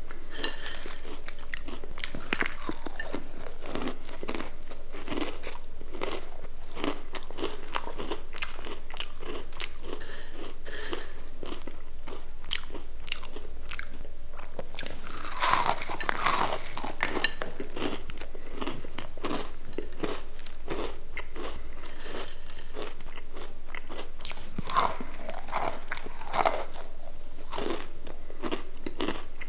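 Crispy potato sticks being bitten and chewed close to the microphone: a steady run of sharp crunches, with louder bites about halfway through and again near the end.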